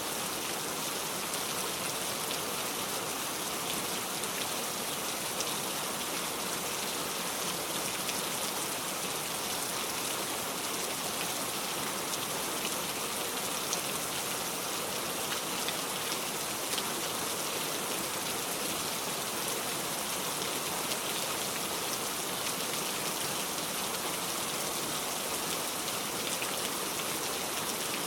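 Heavy rain falling steadily, a dense hiss of drops hitting surfaces with fine individual drop ticks.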